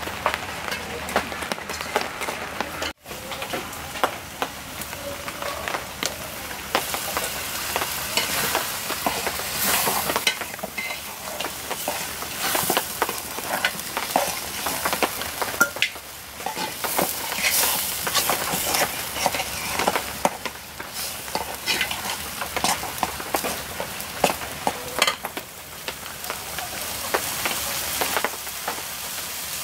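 A metal spatula stirring and scraping greens in a metal pan, with repeated scrapes and clicks over a steady sizzle of the cooking food. The sound drops out briefly about three seconds in.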